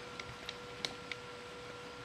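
Four light, sharp clicks in about a second, the third the loudest, over a faint steady hum.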